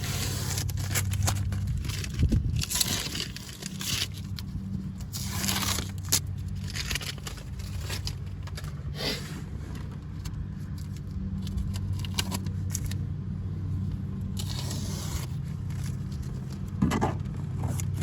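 Masking tape being peeled off, with repeated short scraping rips and crackles, over a steady low hum.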